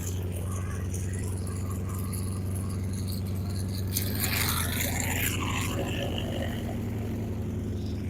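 Vintage piston-engine propeller airplane running with a steady low drone; a brief rush of hissing noise rises over it about four seconds in.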